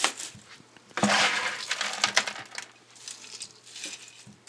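Dry grape stems, shells and pits crunching, rustling and clinking as hands pack them down into a metal paint can, with a louder stretch of crunching about a second in.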